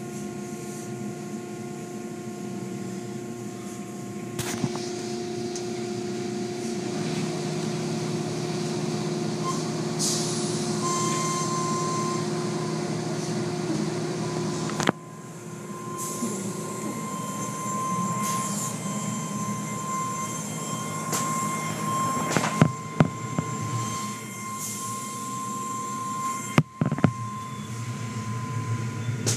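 Automatic car wash running, heard from inside the car: machinery humming with several steady tones over the hiss of spraying water. A few sharp knocks come partway through and near the end.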